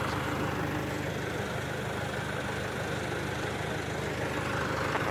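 Flatbed tow truck's engine running steadily as the truck drives past.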